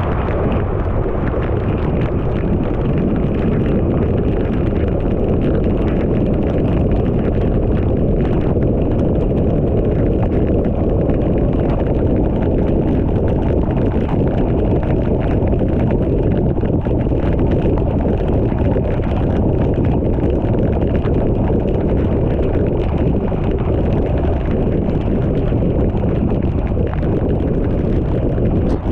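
A car driving on a rain-soaked road in heavy rain: a steady rumble and hiss of tyres on the wet road, with raindrops ticking on the car throughout.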